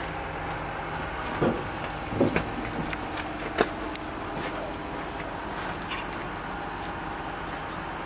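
Truck engine idling steadily, with a few short knocks in the first four seconds.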